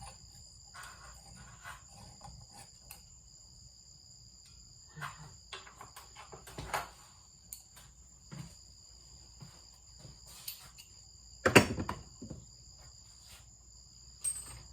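Steady high-pitched insect trilling, like crickets, under scattered knocks and clatter; the loudest knock comes about eleven and a half seconds in.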